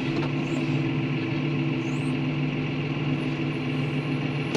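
John Deere tractor engine idling steadily, heard from inside the cab.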